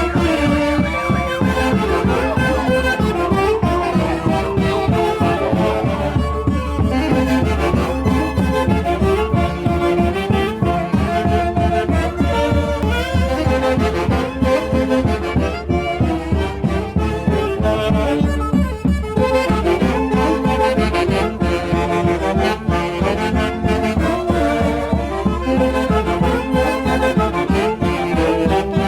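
Live Santiago festival music from a Peruvian orquesta: wind instruments playing a melody over a steady, driving beat.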